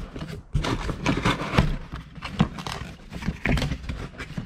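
Cardboard shipping box being handled: rustling and scraping of the cardboard flaps, with a string of irregular knocks and thumps as the metal scarifier cartridge inside is shifted.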